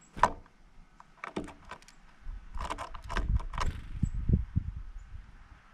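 A series of sharp clicks and light clattering, then uneven low thumps and rumbling from about two seconds in.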